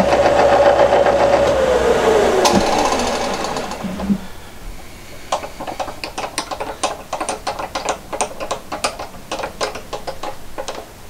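A power tool motor running with a steady whine, then spinning down to a stop with falling pitch about two seconds in. After it, a run of light, irregular clicks and ticks, about two or three a second.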